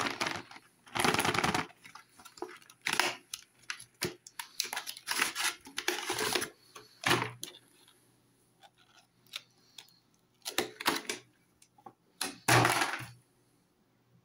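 A cardboard crayon box and its plastic tray being handled and opened: irregular rustles, scrapes and sharp clicks, with a few louder scraping bursts. Near the end, wax crayons click against each other as they are taken out.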